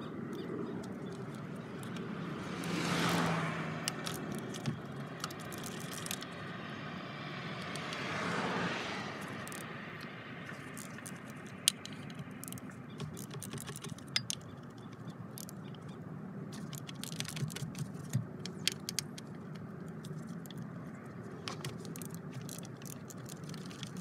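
Hand tools, a 10 mm socket ratchet and a screwdriver, working on an accelerator pedal position sensor bracket, giving irregular sharp metallic clicks and taps. There are two swelling rushes of noise about three and eight seconds in.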